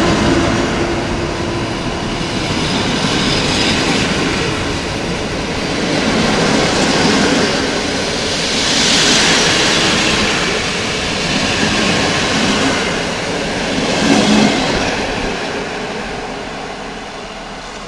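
PKP Intercity passenger coaches rolling past: a steady rush of wheels on rail that swells and ebbs as the cars go by, then fades as the tail of the train draws away.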